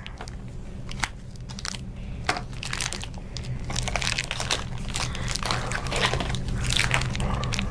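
Plastic-foil blind-bag packets crinkling and crackling as they are handled and pulled open, in irregular bursts of small crackles.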